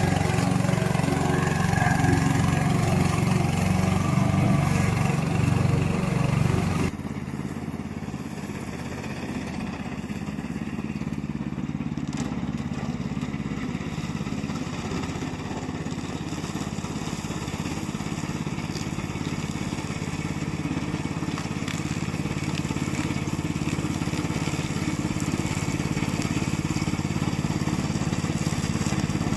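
Remote-control slope mower running. For about the first seven seconds its engine is loud and low-pitched; then the sound changes abruptly to a quieter, steady running sound.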